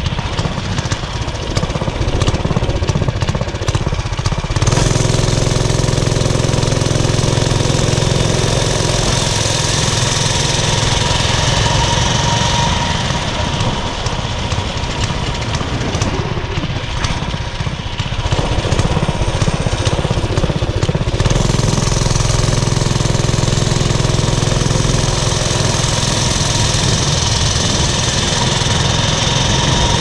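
Briggs & Stratton 6.5 hp Intek OHV single-cylinder engine of a homemade mini bike running steadily under throttle while riding. It drops back for a few seconds at the start and again about two-thirds of the way through, then pulls back up.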